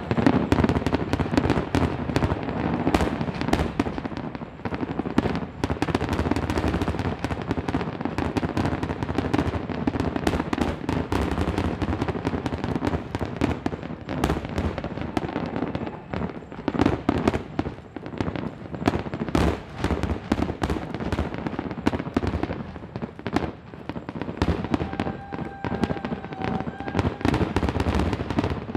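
Fireworks finale: a dense, continuous barrage of shell bursts and crackling, many bangs a second with no pause, and a faint steady whistle near the end.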